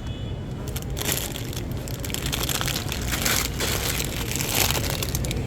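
Irregular rustling and crinkling, like plastic packaging or bags being handled, in swells that come and go, over a low steady hum.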